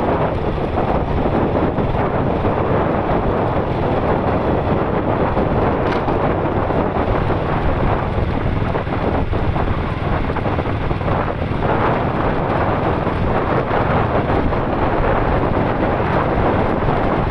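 Steady wind rushing over the microphone of a camera carried on a moving vehicle, mixed with the vehicle's road and engine noise.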